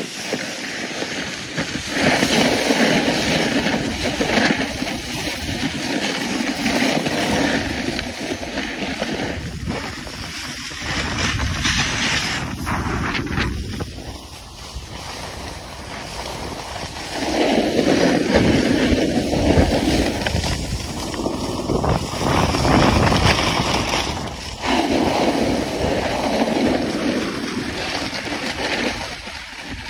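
Wind rushing over the microphone and a snowboard scraping and hissing over hard-packed groomed snow while riding downhill, swelling louder for stretches of a few seconds as the board turns and picks up speed.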